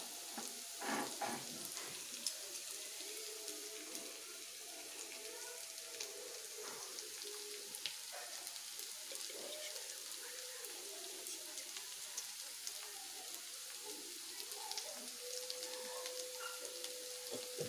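Mixed vegetables (potato, onion, green chilli, carrot, beans, cauliflower) sizzling in oil in a pan, a steady hiss with fine crackles.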